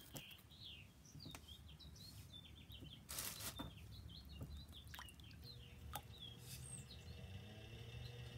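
Faint bird chirps repeat in the background. About five seconds in, an electric pottery wheel's motor starts with a steady low hum that rises in pitch as the wheel speeds up.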